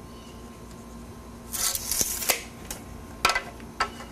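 Steel tape measure's blade rattling back into its case for about a second, followed by a few short clicks of tools being handled on the wooden board.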